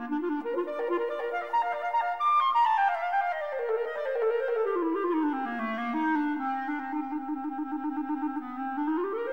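Solo clarinet playing an ornate obbligato line over string accompaniment: quick figures, then a long run falling down the scale, a long trilled low note, and a quick run rising again near the end.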